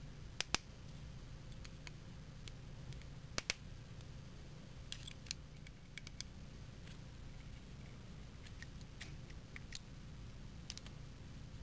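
Small metal clicks and taps from an Allen key and the loosened head screws and cylinder head of a model four-stroke glow engine being taken apart by hand. Two sharp double clicks come about half a second and three and a half seconds in, then lighter scattered ticks.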